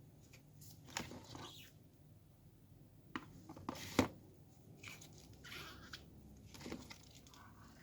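Faint handling noises: a few light clicks and taps, the sharpest about four seconds in, with short rustles between them.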